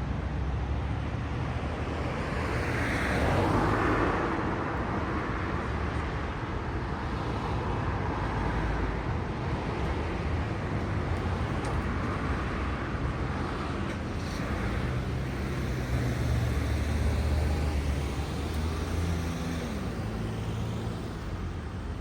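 Road traffic with vehicles passing, the loudest going by about three to four seconds in, and a low engine drone from a passing vehicle in the second half.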